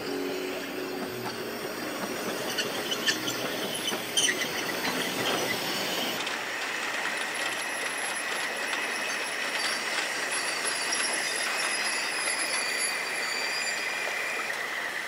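Narrow-gauge steam locomotive running through deep snow, a steady rushing noise with a couple of sharp knocks about three and four seconds in. In the second half a thin, steady high squeal of the wheels comes in.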